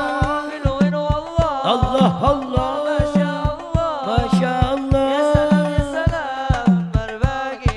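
Arabic-style music: an ornamented, bending melody over a steady beat of low hand-drum strokes.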